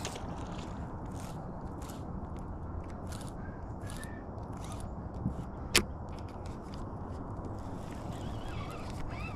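Handling noise from a baitcasting reel and its line: a scatter of soft clicks, with one sharp click a little past the middle, over a steady low rumble.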